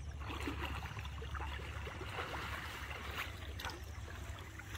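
Pond water sloshing and splashing as men wade through it, dragging a fishing net, with many small irregular splashes over a steady low rumble.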